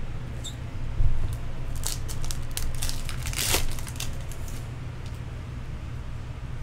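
Hands handling baseball trading cards and their wrapped packs: crinkling of the wrappers and cards being flicked and shuffled, in a string of short crackles that peaks a few seconds in. A soft thump about a second in.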